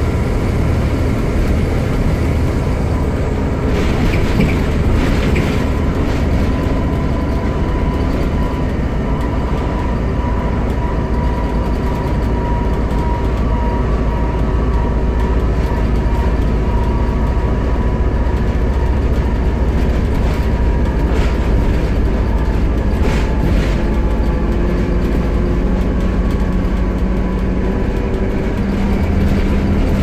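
Volvo B7TL double-decker bus's diesel engine, heard from inside the bus while it is under way: a steady low drone carrying a high, steady whine, the bus's loud 'hoover' sound. There are a few light rattles, and the engine note rises near the end as the bus pulls harder.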